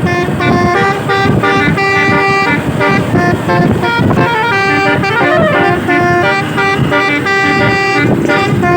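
Indonesian multi-tone "telolet" bus horn of the Basuri type, playing a melody of short stepped notes that change pitch every fraction of a second, with a brief sliding note about five seconds in.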